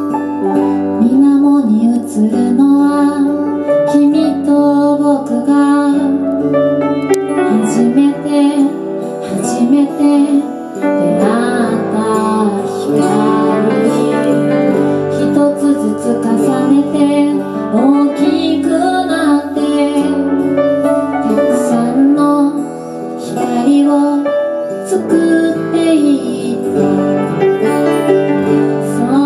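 Live acoustic song: a woman singing with acoustic guitar accompaniment.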